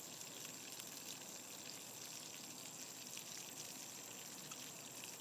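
Catfish frying in oil in a small pan: a faint, steady sizzle with light crackles.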